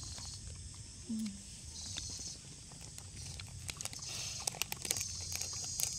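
Plastic drink bottle crackling and clicking as it is handled and its screw cap twisted, in a quick run of sharp clicks from about three and a half seconds in. A brief low voice sound comes about a second in, over a steady high hiss.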